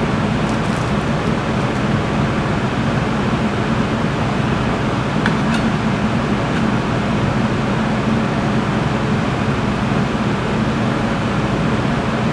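Commercial kitchen ventilation running steadily: a constant rush of air over a low hum. A few faint light clicks come about half a second in and again around five seconds in.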